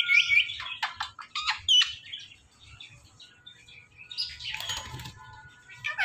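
Indian ringneck parakeet giving quick rising whistled chirps and a run of short, sharp calls in the first two seconds. About four and a half seconds in there is a brief noisy flurry of wing flapping, and another whistled call comes at the very end.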